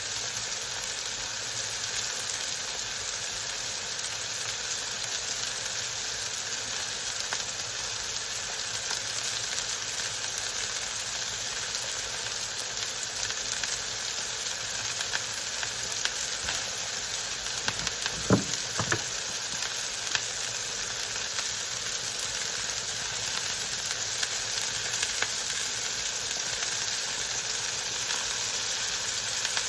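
Beef burger patties sizzling steadily on a hot grill while being seasoned, with a couple of brief knocks about two-thirds of the way through.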